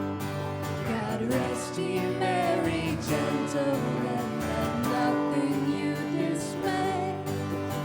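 Live worship music: a sung vocal line comes in about a second in over steady instrumental chords.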